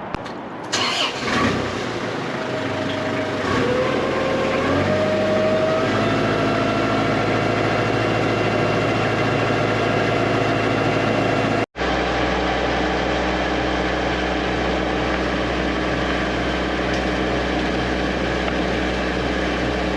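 High-pressure drain jetter's engine-driven pump being put on: a few knocks, then the engine rises in pitch in steps over a couple of seconds and settles into a steady run under load, jetting water up the pipe. The sound cuts out for an instant about two-thirds of the way through.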